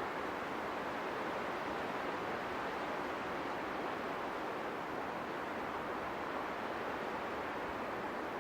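Wind blowing through trees, a steady rushing of leaves and branches that holds an even level throughout.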